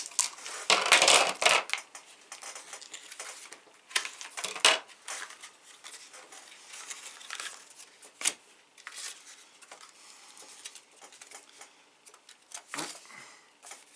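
Small game pieces and packaging being handled while a board game box is emptied: a loud rattling clatter about a second in, then scattered sharp clicks and soft rustles.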